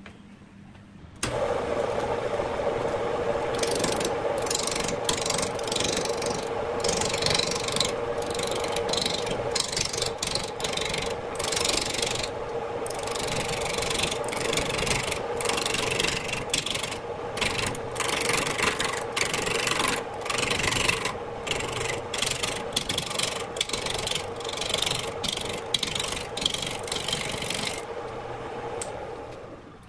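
Wood lathe running with a steady hum, starting abruptly about a second in. A hand-held turning tool roughs down a spinning bark-covered log blank in many short, irregular cutting passes. The cutting stops near the end, leaving the lathe running alone.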